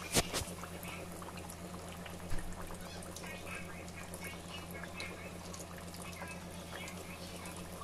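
Floured fish frying in hot oil in a stainless steel pot: steady sizzling and crackling bubbles. A sharp clack just after the start and a softer thump about two seconds in, with a low steady hum underneath.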